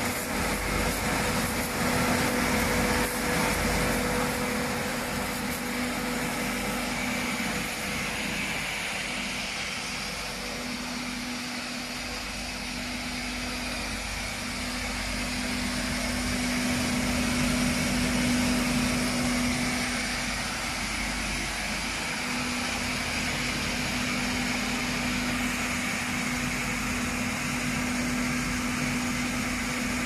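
Roller-drum potato washing machine running: a steady motor hum under the continuous hiss and splash of its water sprays washing the potatoes in the drum.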